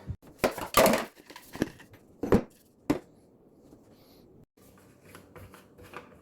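Handling noise: objects being picked up and set down, a series of knocks and rustles over the first three seconds, then a few faint ticks.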